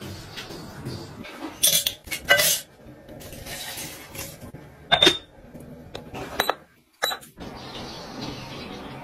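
About six short clinks and taps of glass and plastic kitchenware being handled, spread over several seconds, with a low quiet background between them.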